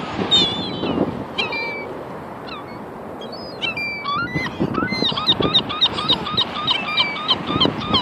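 Gulls calling: a few separate downward-sliding cries, then from about five seconds in a fast run of repeated calls, about four a second.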